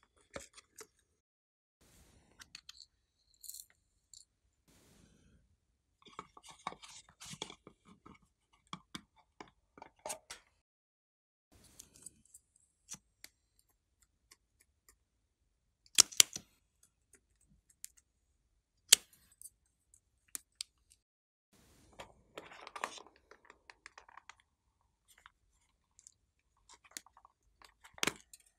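Hard plastic makeup and clay containers handled and opened: scattered clicks, taps and rustles with quiet gaps, and two sharp plastic clicks a few seconds apart past the middle.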